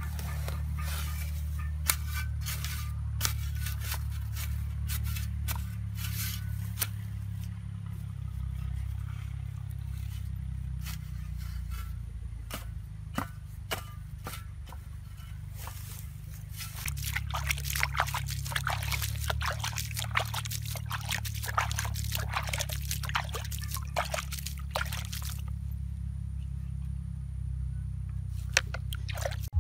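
A metal shovel scraping and patting soil with scattered clicks. About halfway through comes several seconds of dense crackling splashes as water is poured onto the freshly filled planting hole and soaks in. A steady low rumble runs underneath.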